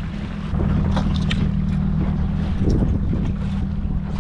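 Wind rumbling on the microphone and water splashing along the hull of a small outboard boat on open water, getting louder about half a second in, with a few light clicks.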